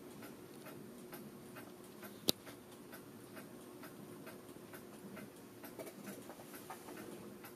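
Faint scattered clicks and taps of hand tools and the circuit board being handled at a workbench, with one sharp click about two seconds in, over a faint steady hum.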